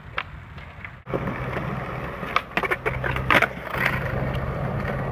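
Skateboard wheels rolling on concrete, close by: a steady rumble that starts suddenly about a second in, with several sharp clacks of the board near the middle. Before that, fainter clicks of boards further off.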